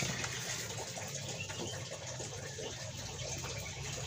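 Steady rushing noise with a few faint small ticks over it.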